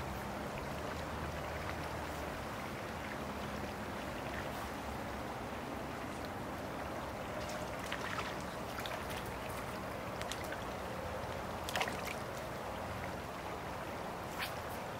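Creek water flowing steadily around a wading angler, with a few short splashes from a hooked trout thrashing at the surface; the sharpest comes about two-thirds of the way through.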